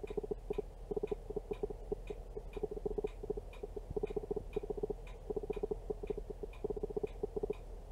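Camera autofocus motor hunting back and forth: clusters of rapid clicking with pauses between them, and a faint regular tick running under it.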